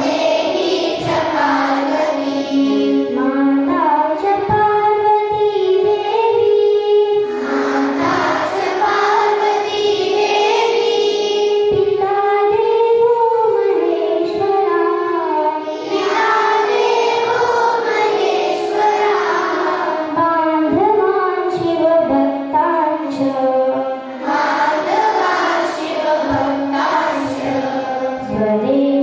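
Schoolgirls singing a prayer together in unison, their voices amplified through handheld microphones, with long held notes.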